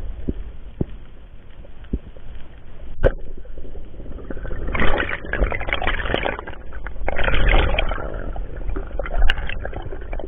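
Muffled underwater noise picked up by a camera in its waterproof housing: a low rumble with scattered sharp clicks, then two stretches of louder rushing water noise about five and seven seconds in.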